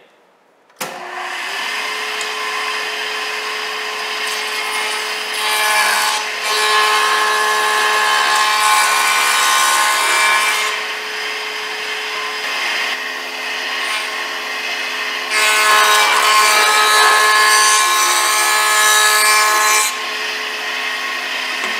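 Delta 6-inch jointer switched on under a second in and running with a steady whine, then two passes jointing the edge of a walnut board, each adding a louder rasping cut for about five seconds, first around five to six seconds in and again around fifteen seconds in.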